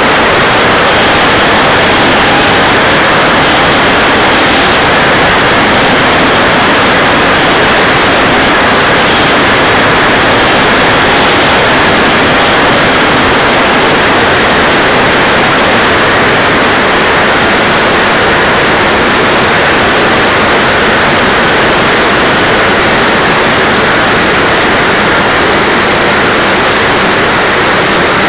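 Radio-controlled Harpoon model jet in flight, heard from a camera mounted on its fuselage: a steady, loud rushing of engine and airflow with no change in level.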